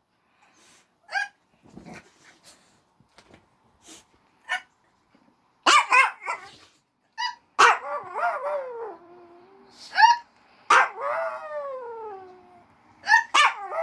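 A woman hiccupping, short sharp sounds every second or two, with a small dog howling back at her. Its howls slide down in pitch, three of them in the second half, each following a hiccup.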